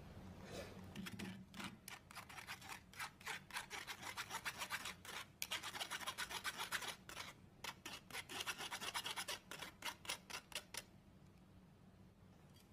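Metal spoon scraping and pressing fruit pulp against a stainless steel mesh strainer in quick, repeated strokes, with one longer unbroken scrape midway; it stops about two seconds before the end.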